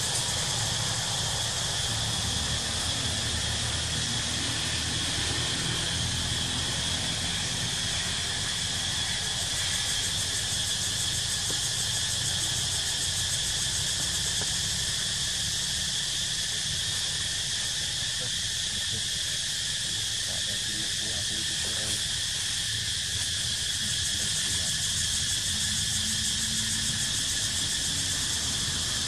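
Steady chorus of insects: a continuous high, even buzz that never breaks, over a low steady rumble.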